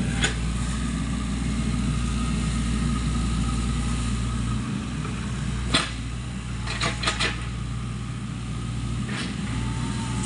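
SANY mini excavator's diesel engine running steadily as the machine works, with a few sharp knocks: one just after the start, one about six seconds in, and a quick run of three around seven seconds.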